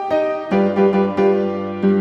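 Background piano music: a slow melody of struck notes over held bass notes.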